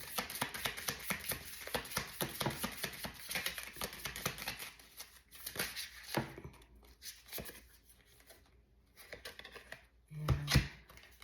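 A deck of tarot cards being shuffled by hand: a fast run of crisp card clicks for about five seconds, then slower, scattered flicks. There is a louder thump near the end.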